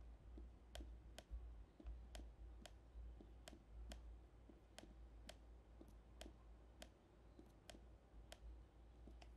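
A computer mouse clicking repeatedly: about fifteen faint, sharp clicks at irregular intervals.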